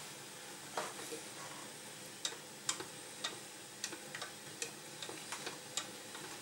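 Wire whisk stirring sunchokes through a thick cream sauce in a stainless steel pot, its wires clicking against the pot's side about ten times at irregular intervals.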